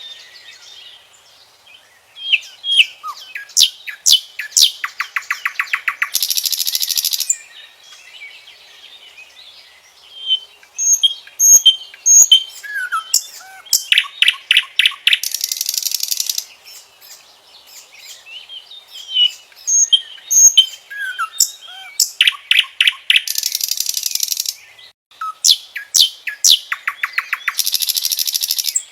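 Common nightingale singing: four varied phrases separated by short pauses, each made of rapid repeated notes, quick trills and high whistles, several ending in a harsh, buzzy rattle.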